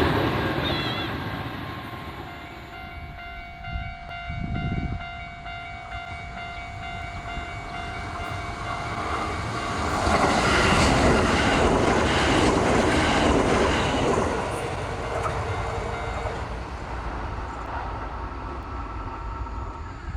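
Japanese railway level-crossing alarm ringing with a steady repeated tone while a train passes through the crossing. The alarm starts a few seconds in. The train's rumble and wheel noise are loudest about halfway through, and the alarm stops a couple of seconds after the train has gone.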